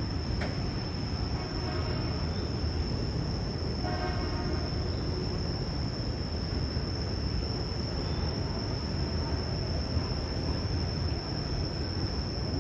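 Steady outdoor ambience: insects droning on one constant high note over a low, even rumble, with no calls from the chimpanzee.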